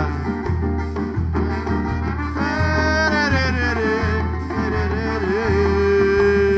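Live band music in bumba-meu-boi toada style with a steady pulsing low beat; a melody line wavers and glides, then settles on one long held note in the second half.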